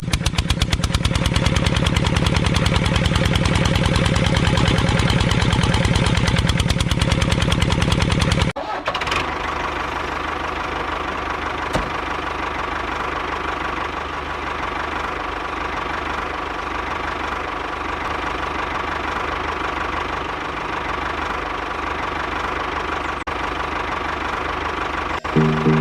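An engine running steadily with a fast, even chugging, changing abruptly about eight and a half seconds in to a smoother running sound with a thin steady whine.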